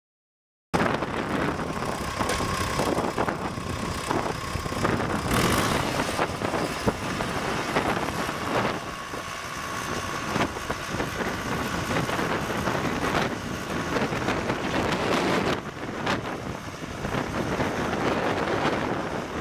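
Cummins 4BTA-3.9 four-cylinder diesel engine of a 1988 Versatile 276 bi-directional tractor running while the front loader bucket is raised, with wind on the microphone. The sound cuts in under a second in.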